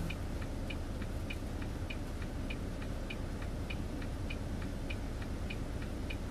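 Semi truck's turn-signal relay clicking steadily, just under two clicks a second, over the low, even rumble of the idling diesel engine, heard inside the cab.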